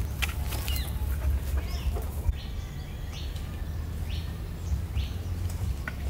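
Outdoor ambience with a steady low rumble. In the first couple of seconds there are scattered rustles and small knocks from someone climbing among the branches of a jackfruit tree. After that, birds chirp briefly a few times.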